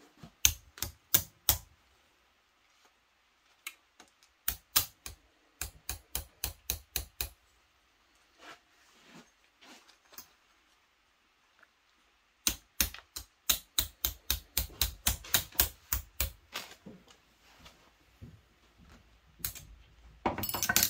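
Ball-peen hammer tapping a steel rose petal on a wooden stump to shape it. The sharp metallic strikes come in quick runs of about four a second, with pauses of a few seconds between runs and a fast flurry at the end.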